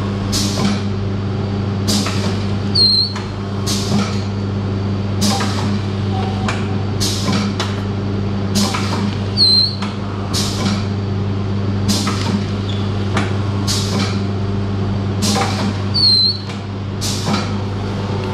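Pneumatic form-fill-seal pouch packing machine running: a steady motor hum under regular mechanical clacks that come in pairs about every second and a half. A short hiss cuts in three times, about every six to seven seconds.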